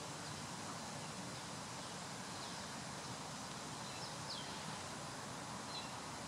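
Steady faint outdoor background hiss with a few short, high bird chirps, one of them falling in pitch about four seconds in.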